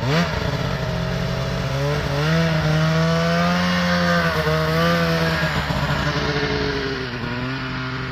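Snowmobile engine running at a steady moderate speed, its pitch wavering a little, then easing off and growing quieter near the end.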